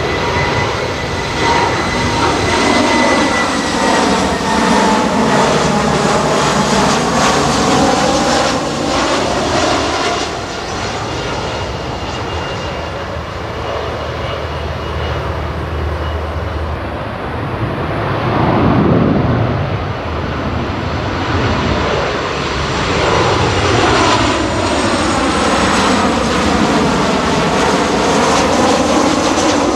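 Jet airliners on final approach passing low overhead one after another: first an Airbus A319, then a Boeing 737, each a steady engine rumble and whine with a sweeping, phasing change in tone as it goes over.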